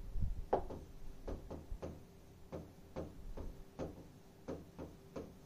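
Irregular light clicks and taps of writing on a board, about two or three a second, over a faint steady hum.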